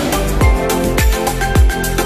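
Electronic background music with a steady beat: deep kick drums that drop in pitch, crisp hi-hat ticks and held synth notes.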